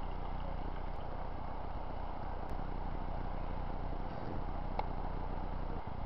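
A steady low rumble of an engine idling, with a faint click about five seconds in.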